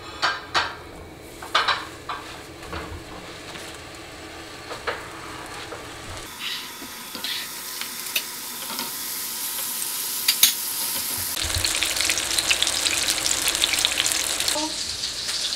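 Hamburg steak patties sizzling as they fry in oil in a nonstick frying pan. A few soft clicks and knocks come first as the patties go in, and the sizzle grows steadily louder through the second half.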